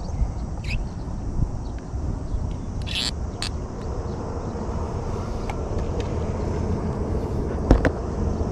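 Steady low rumble of wind on the microphone, with scattered light clicks and one sharper knock near the end as the fishing rod and its rest are handled.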